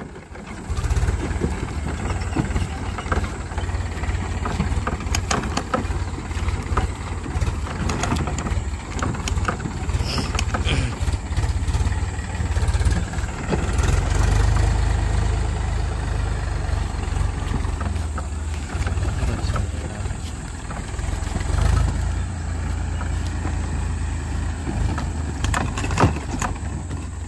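Powertrac Euro 50 tractor's diesel engine running steadily under load while driving a rear-mounted rotavator through dry soil, with scattered knocks over the engine.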